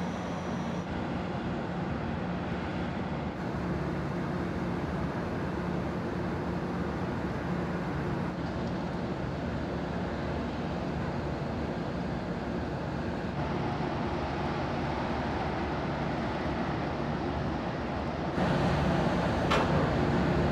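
Steady low drone of a car ferry's engines and deck machinery on the mooring deck during departure, with several low hum tones under a noisy wash. It grows louder near the end, and a single sharp click sounds just before the end.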